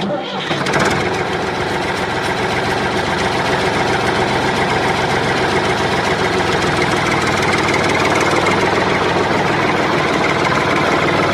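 Engine running steadily at a constant speed, with a fast, even pulsing drone; it starts abruptly and holds steady.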